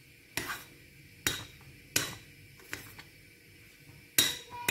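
A metal spoon stirring oat porridge in a stainless steel saucepan, knocking against the pan about five times, roughly once a second, each knock with a short ring.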